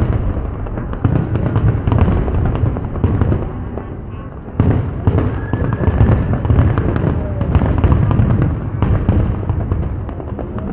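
Aerial fireworks display: a rapid barrage of sharp bangs and crackling over a continuous rumble of bursts. The barrage eases a little about four seconds in, then picks up again with a sudden loud bang.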